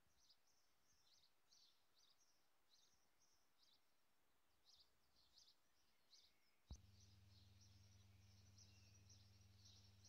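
Faint dawn chorus of songbirds: short, high chirps repeated through the whole stretch. About two-thirds of the way in, a click is followed by a steady low hum that carries on to the end.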